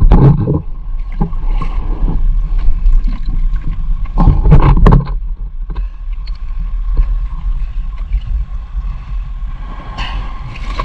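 Small boat on the water: a steady low rumble, with louder bursts of noise at the start and about four seconds in.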